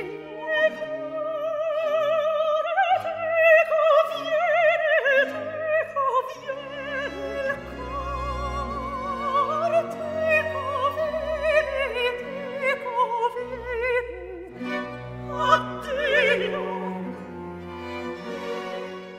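A high operatic voice singing an Italian aria with wide vibrato, holding long notes and running through melismatic passages. An orchestra with strings accompanies it, the bass moving in slow steps underneath.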